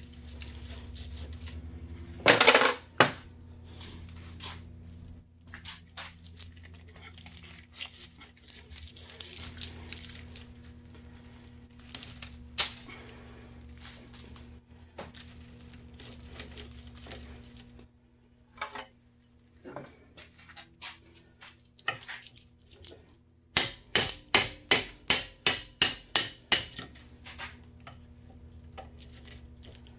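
Scrap metalwork on an electric motor: scattered metal clicks and clinks, with a loud clatter about two seconds in. Near the end comes a quick, even run of about a dozen hammer blows, some three a second, typical of beating cut copper windings out of a motor's stator.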